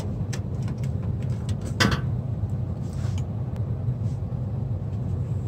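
A steady low rumble in the background, with a few light clicks and one sharper click a little under two seconds in as a screwdriver is set down on a plastic sheet.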